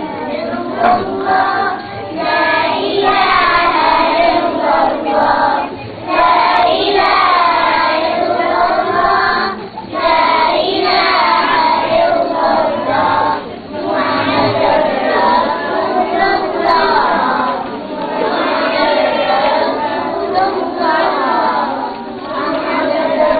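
A group of young children singing a song together, in phrases broken by short pauses about every four seconds.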